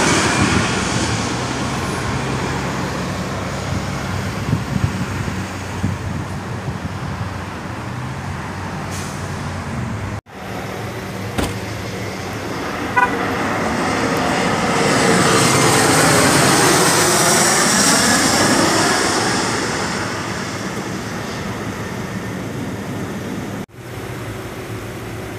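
Jet airliners on landing approach passing low overhead. The Delta Boeing 757-200's engine noise falls in pitch and fades as it goes past. After a cut, a United CRJ-700's jet noise swells with sweeping tones from about fourteen seconds in and then dies away. After another cut near the end, a quieter steady noise follows.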